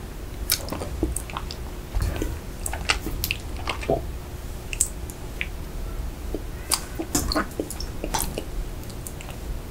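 Close-miked chewing of a last mouthful of soft cake with the mouth closed: irregular small clicks and smacks.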